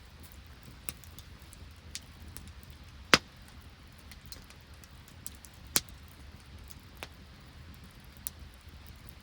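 Wood campfire crackling, with scattered sharp pops at irregular intervals; the two loudest come about three and six seconds in.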